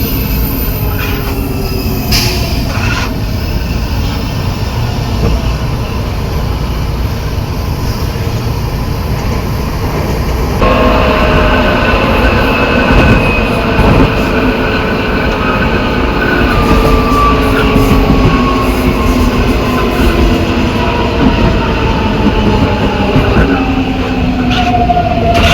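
São Paulo Metro train 225's traction drive heard from inside car G256 while braking: the motor and inverter whine falls slowly in pitch as the train slows, over a low growl. The uploader attributes that growl to the reduction gearbox. About ten seconds in, the sound abruptly grows louder.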